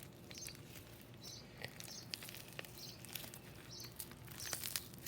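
Small birds chirping faintly in short high calls, about one a second, with scattered light clicks.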